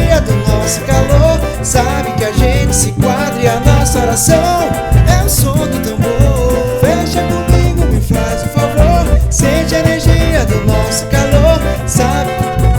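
An upbeat Brazilian pop song playing in an instrumental passage between sung lines, with a steady drum and bass beat under a melodic lead line.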